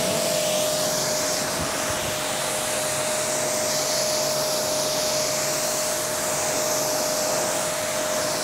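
Pressure washer rinsing pre-wash foam off a car's rear hatch and bumper: a loud hiss of water spray over a steady whine from the machine, the hiss changing as the jet moves across the panels.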